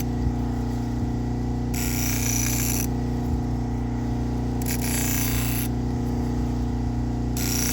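Motor-driven leather stropping wheel running steadily with a hum, while a knife edge is drawn across it in three strokes of about a second each, roughly three seconds apart, each stroke adding a hiss. The strokes deburr the freshly sharpened edge.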